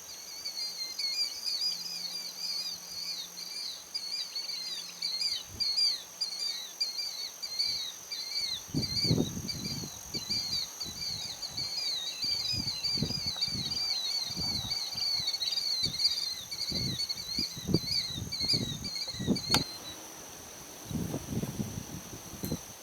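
A songbird singing a long, fast run of repeated chirps that stops about 20 seconds in, over a steady high-pitched insect drone. From about eight seconds in, footsteps on a trail.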